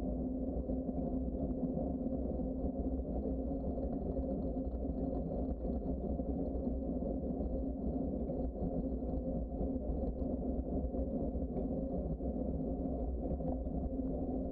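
Steady low rumble of a bicycle riding along a trail, the ride's rolling and wind noise, even and unbroken.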